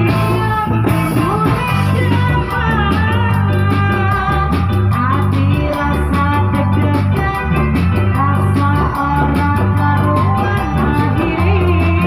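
Music with a singing voice and guitar over a steady beat and a repeating bass line.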